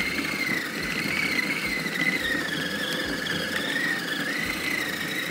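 Electric food processor running, kneading paratha dough: a steady high motor whine that wavers slightly in pitch.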